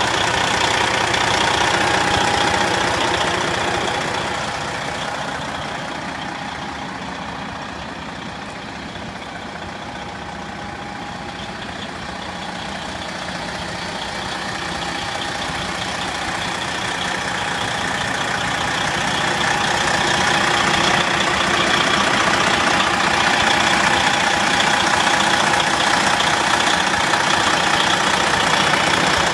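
Detroit Diesel Series 60 inline-six diesel engine idling steadily. It grows fainter for a while in the middle, then is close and loud again near the end.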